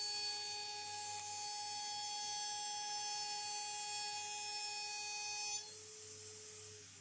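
CNC router with an AMB/Kress FME1050 spindle milling a pocket in a wooden board: a steady, high whine made of several tones, with cutting hiss. About five and a half seconds in, most of it cuts off sharply and the level drops, leaving the spindle's single lower tone running on its own.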